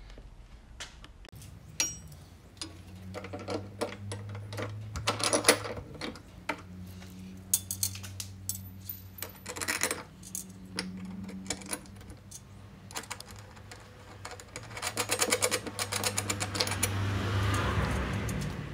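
Small metal clicks and taps of washers and nuts being handled and fitted by hand onto the studs of a van's side-bar bracket, with a run of rapid clicking near the end. A low steady hum runs underneath.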